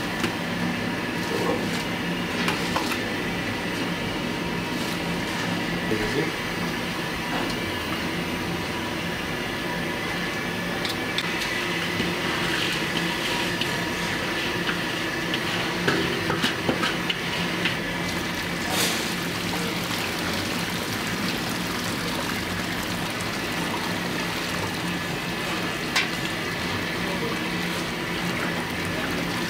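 Soaked rice pouring from a steel bowl into a wide pan of meat broth for Kabuli palaw, with a few clinks of the steel bowl against the pan, over a steady kitchen hum.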